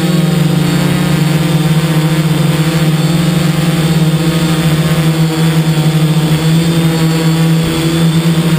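DJI F550 hexacopter's electric motors and freshly balanced propellers buzzing in flight, heard close up from the camera mounted on the craft. A steady, loud hum that dips briefly near the end.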